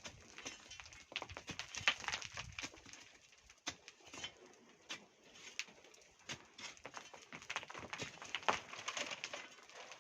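Irregular scraping and clinking of hand tools digging and shifting volcanic sand and stones.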